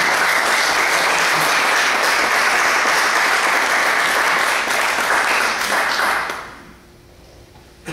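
Audience applauding steadily, the clapping dying away about six and a half seconds in.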